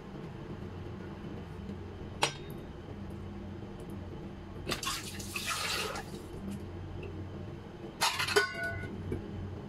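Kitchen handling sounds as cut mango is moved onto a dish: a sharp click about two seconds in, a rush of noise lasting about a second around the middle, and a clatter with a short ringing note near the end, over a steady low hum.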